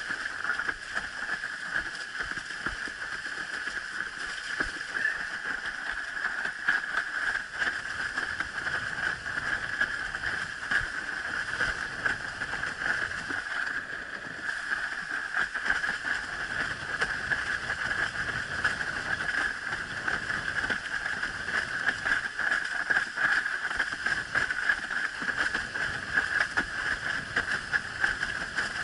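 Water rushing and slapping against a windsurf board planing fast over choppy water, heard as a steady rushing hiss broken by many short slaps of chop. The sound grows fuller about halfway through as the board picks up speed.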